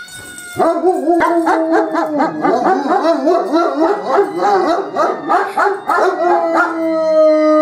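Two dogs howling together with wavering pitch, broken by short yips and barks, set off by a fire siren whose steady wail can be heard behind them and stands alone near the end.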